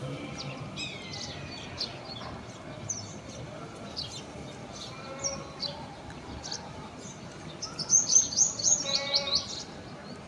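Small birds chirping and tweeting in short high calls, with a louder run of quick chirps about eight seconds in.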